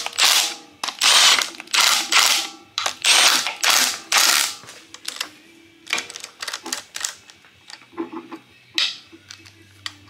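Milwaukee cordless impact tool on a low torque setting, driving oil pan bolts through a long socket extension. It runs in short bursts about once a second for the first few seconds, then gives a few light clicks and one more burst near the end.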